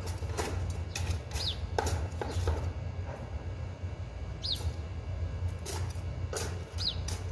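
Small garden trowel scraping and digging into potting soil in a terracotta flower pot, in short irregular scrapes about every half second, over a steady low hum. A bird gives a short falling chirp three times.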